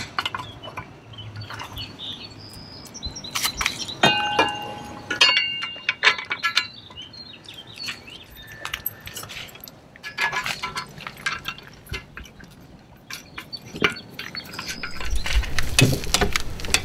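Aluminum rock guard being handled and clamped onto a Cruise 2.0 electric outboard: scattered metal clinks and knocks, some ringing briefly, in clusters about four to six seconds in and again around ten to eleven seconds. A low rumble builds near the end.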